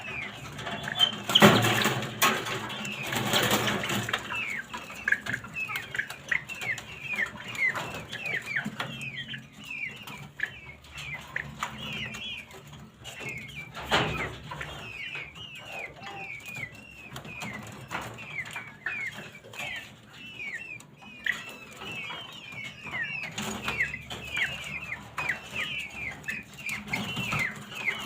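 Indian peafowl chicks peeping: many short, downward-sliding peeps, several a second, running on throughout. A few bursts of rustling noise in the first four seconds, and a single sharp knock about halfway through.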